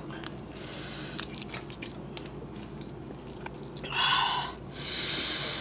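Close-up eating sounds of boiled crawfish: wet chewing and small clicks and cracks of shell, then a loud slurp about four seconds in and a hissy sucking sound near the end.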